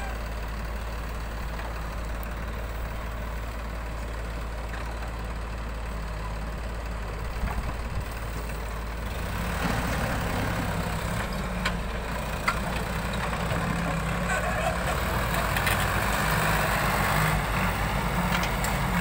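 Diesel engines of a JCB 3DX backhoe loader and a Sonalika tractor running steadily, the engine hum growing louder and fuller about halfway through. Two sharp knocks stand out along the way.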